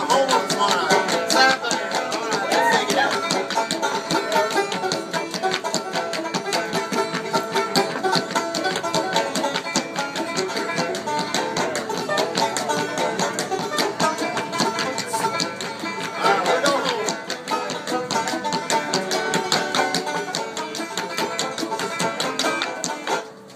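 A banjo and an acoustic guitar playing a tune together, picked rapidly, with the banjo prominent. The music stops abruptly near the end.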